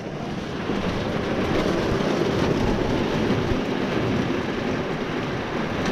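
Heavy rain falling on a camper van's roof, heard from inside the van as a loud, steady hiss that swells slightly about a second in.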